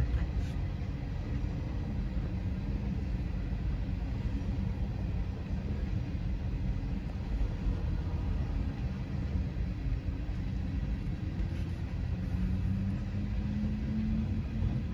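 Steady low rumble of a train rolling through a grade crossing, heard from inside a car.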